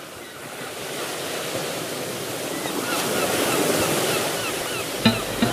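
Sea waves washing in a steady rush that gradually swells, with a few short high chirps over it. Near the end a few clicks and the first notes of music come in.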